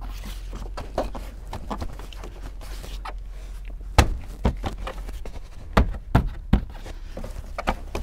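Plastic seat-belt pillar trim on a 2001–2005 Honda Civic being pushed and knocked into place by hand: a string of sharp plastic knocks and thunks, the loudest about four seconds in, with several more over the following few seconds.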